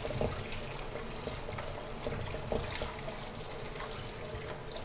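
Kitchen tap water running steadily into a wok in a stainless steel sink as the wok is rinsed and scrubbed by hand.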